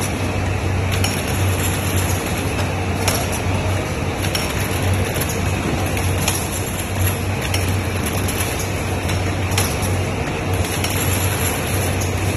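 Gluten string forming machine and its chain conveyor running: a steady mechanical hum with a low drone, and a light click every one to two seconds.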